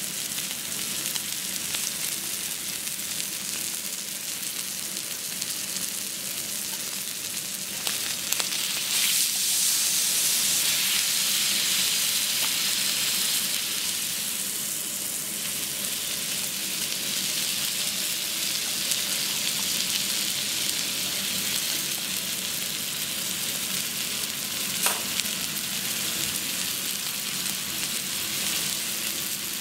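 Thick block of wagyu beef sizzling on a teppanyaki iron griddle, a steady hiss of frying fat that grows louder for several seconds about a third of the way in. A single light click sounds near the end.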